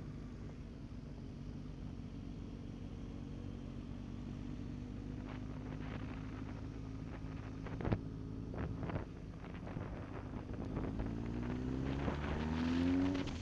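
Motorcycle engines running steadily on a group ride, with a sharp click about eight seconds in. Near the end an engine revs up, rising in pitch and getting louder, then drops off.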